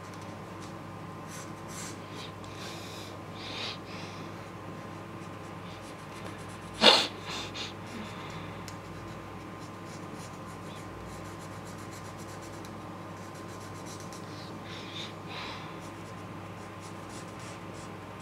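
Felt-tip marker rubbing across paper in short colouring strokes, over a steady low electrical hum. A single short, sharp noise about seven seconds in is the loudest thing, followed by a few softer ones.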